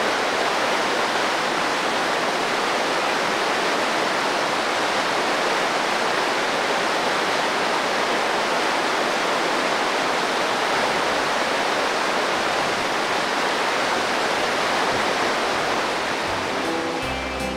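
Whitewater of a rushing mountain creek tumbling over boulders: a steady, even rush of water. Guitar music comes in near the end.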